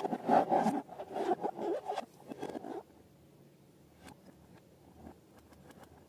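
Rubber balloons being handled, a rough rubbery scraping that stops suddenly after about three seconds, followed by a few faint clicks.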